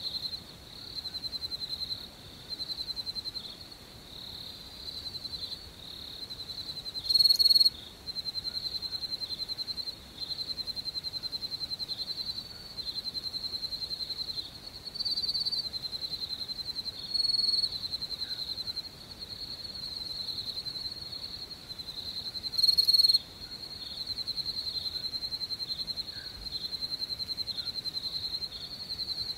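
Crickets chirping: a high, rapidly pulsed trill in runs of a second or two with short breaks. Four louder, slightly higher calls come from a closer insect at intervals through the stretch.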